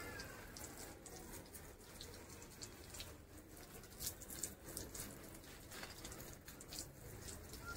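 Water sprayed from a garden hose, pattering and splashing faintly onto potted plants and a wet concrete floor.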